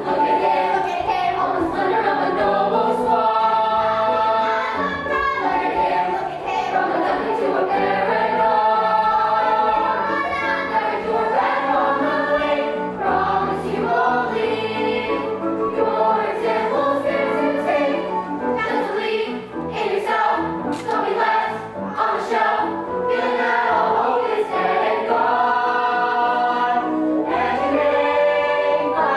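Young musical-theatre cast singing a stage song together in chorus, with sustained, changing sung notes throughout.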